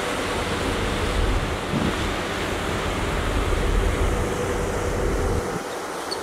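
Wind buffeting the microphone over the steady rush of the sea and a ship's churning wake, with a faint steady hum underneath. The low wind rumble drops away about five and a half seconds in.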